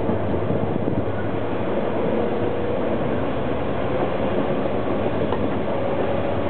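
Alstom LINT 41 diesel railcar running along the line, heard inside the driver's cab: a steady drone of the engine and wheels on the rails.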